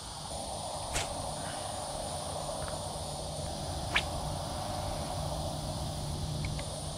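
Steady evening chorus of insects and frogs at a pond: a constant high insect trill over a lower, dense frog chorus. Two short sharp clicks stand out, about a second in and again about four seconds in.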